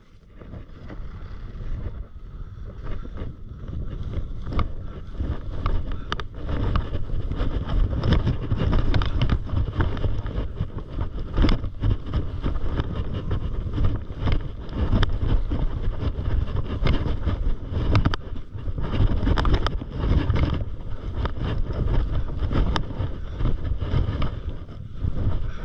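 Wind buffeting the microphone of a camera carried by a skier descending through powder, an uneven low rumble that builds over the first couple of seconds, with frequent crunches and scrapes of the skis on the snow.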